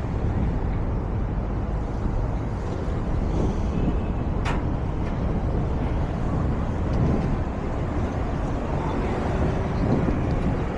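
Steady low rumble of wind buffeting the microphone during a bicycle ride, with traffic noise blended in and one sharp click about four and a half seconds in.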